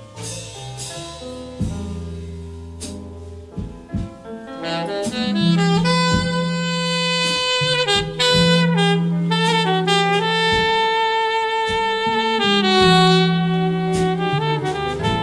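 Instrumental break of a slow soul-jazz song: a saxophone plays long held notes over bass and drums. The horn comes in about four seconds in, after a quieter stretch of bass and drums.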